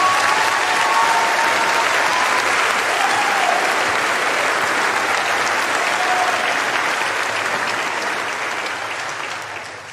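A large theatre audience applauding and cheering, with a few voices calling out above the clapping. The applause dies down near the end.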